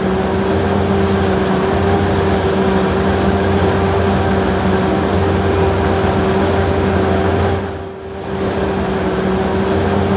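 John Deere self-propelled forage harvester running steadily under load, with a steady droning hum from the machine, dipping briefly about eight seconds in.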